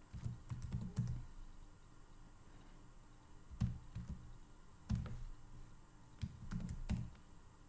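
Typing on a computer keyboard: a few keystrokes at a time in short, irregular clusters of clicks with pauses between them.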